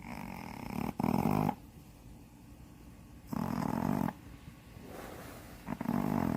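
Shih Tzu snoring: three loud snores about two and a half seconds apart, with softer breathing between them.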